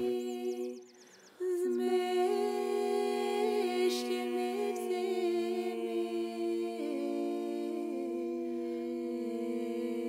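Wordless a cappella women's voices holding long notes together in close harmony, dropping out briefly about a second in and then carrying on steadily.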